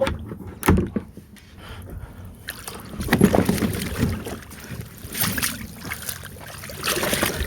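Irregular knocks and thuds on a fishing kayak's hull, with sloshing water, as someone climbs out of the kayak into shallow water.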